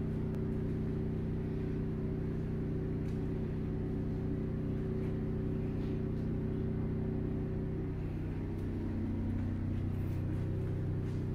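Nissan Skyline GT-R R32's RB26DETT twin-turbo straight-six idling steadily with the bonnet open. The idle note shifts slightly about eight seconds in.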